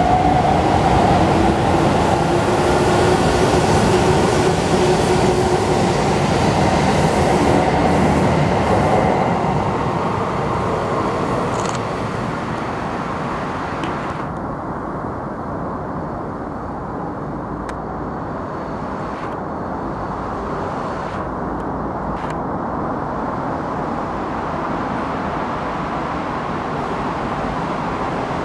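Sendai Subway Namboku Line 1000 series electric trains running: a train's motor whine and rumble, loud for the first nine seconds and then fading, followed by the steady rumble of a train approaching along the track, with a few short clicks in the middle.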